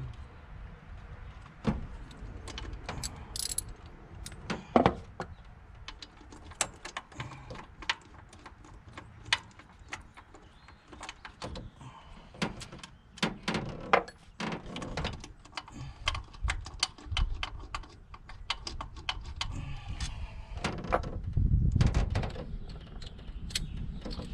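Hand wrench working the half-inch intake bolts on a Ford 460 V8: irregular metallic clicks, clinks and knocks of the steel tool on bolts and engine parts, loosened by hand without power tools. A low rumble rises about 21 seconds in.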